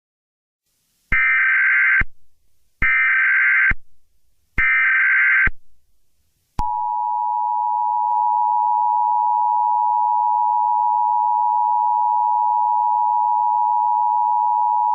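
Emergency Alert System activation: three short bursts of SAME header data, each about a second long with about a second between them, then, about six and a half seconds in, the steady two-tone EAS attention signal.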